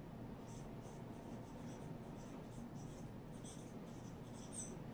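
Marker pen writing on a whiteboard: faint, short squeaky strokes coming in scattered clusters as the words are written.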